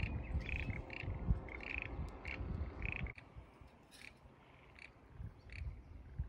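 Frogs calling from flooded rice paddies: a run of short croaks repeated at a steady pace, thinning out about halfway through, over a low rumble.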